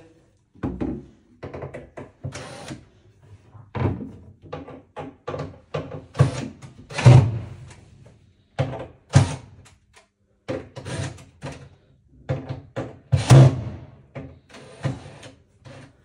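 Irregular knocks and thuds of a cabinet door being handled and fitted on its hinges, the two loudest about seven and thirteen seconds in.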